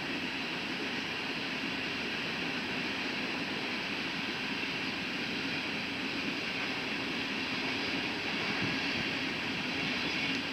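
Freight train's covered hopper cars rolling past on the mainline: a steady rolling noise of steel wheels on rail.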